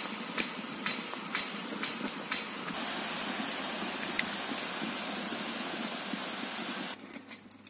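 Pot of crayfish broth at a rolling boil, bubbling and hissing steadily with scattered small pops. The hiss grows louder about three seconds in and stops abruptly near the end.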